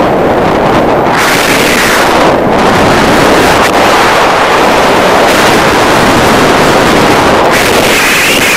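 Loud wind rushing over the microphone of a paraglider pilot's camera in flight, a rumbling roar whose hiss drops away and surges back several times as the airflow changes.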